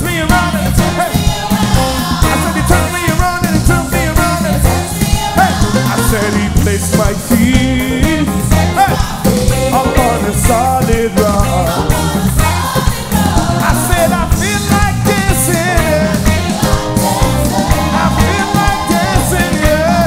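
Live gospel praise music: a lead singer and backing vocalists singing an upbeat song over a band with a steady beat.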